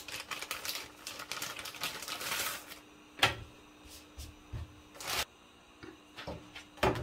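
Plastic tortilla bag crinkling and rustling as tortillas are pulled out, then a few sharp taps and clicks as it is handled again and the tortillas are set down on the comal.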